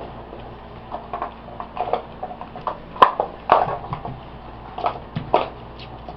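Boxer puppies, five weeks old, scuffling at play: irregular short knocks and scrapes, the sharpest knock about three seconds in.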